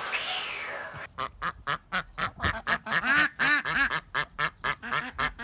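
A duck quacking in a rapid, steady run of short quacks, several a second, starting about a second in after a brief falling hiss.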